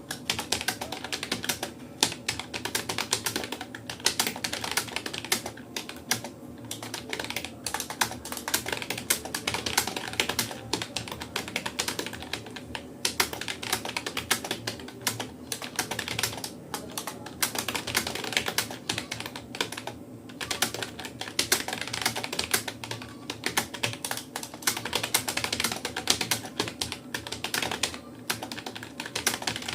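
Typing on a Rapoo computer keyboard: a fast, uneven run of key clicks with brief pauses, part of a warm-up drill on the alphabet, space bar, enter key and full stop.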